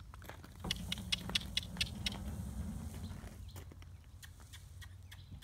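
A quick run of sharp tongue clicks and kissing sounds, a person clucking to urge a mare and her newborn foal to move, over a low rustle in the first few seconds.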